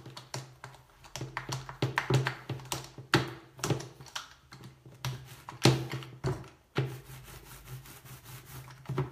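Small foam paint roller being worked back and forth in a plastic paint tray to load it with paint: a fast, uneven run of clicks and taps, with a few louder knocks in the middle.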